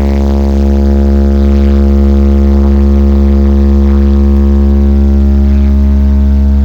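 Large sound system's bass speakers playing one steady, very loud deep bass tone with a buzzy stack of overtones, held unchanged, as a low-frequency test for a sound pressure level check.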